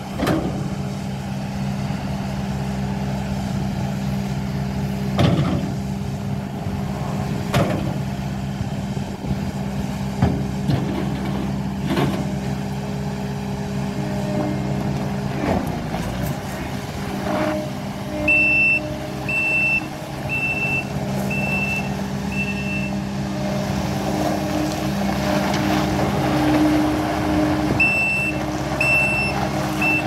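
Kubota SSV75 skid steer's diesel engine running steadily, with a few sharp clunks as it works. About halfway through, its backup alarm starts beeping about once a second while it reverses, stops for a few seconds, then beeps again near the end.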